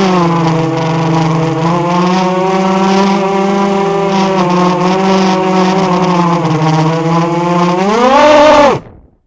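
Walkera F210 racing quadcopter's motors and propellers whining at a steady pitch. Near the end the pitch climbs sharply, then falls and cuts off abruptly.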